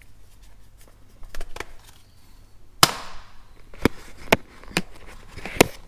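Sharp clicks and knocks of handling around a tractor's metal linkage parts: a few faint ones, then one loud knock about three seconds in, followed by four or five smaller ones.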